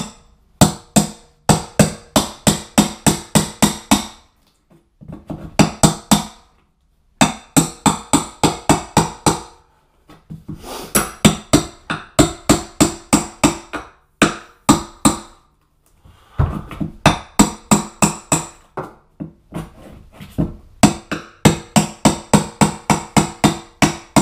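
Hammer driving a chisel under cork tiles glued to a plywood subfloor: quick, sharp strikes at about three or four a second, in runs of a few seconds with short pauses between. The firmly bonded tiles need to be chiselled off.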